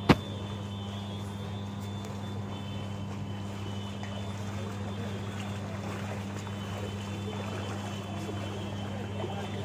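Steady low hum of substation power transformers, with one sharp click right at the start.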